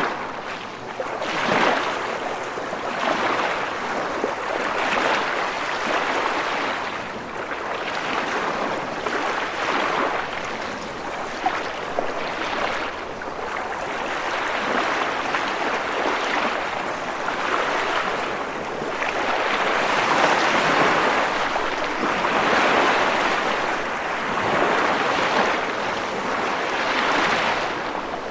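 Rushing water: a steady hiss that swells and eases every few seconds.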